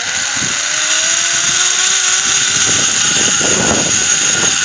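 Zipline trolley pulleys whirring along a steel cable during a ride: a loud, steady high whir with a faint tone that drifts slowly upward. A broader rush of noise swells a little past halfway.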